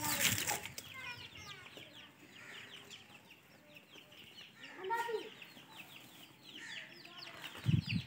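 Farmyard birds: quick high chirps repeating throughout, with a clucking call like a hen's about five seconds in. A short low thump near the end is the loudest sound.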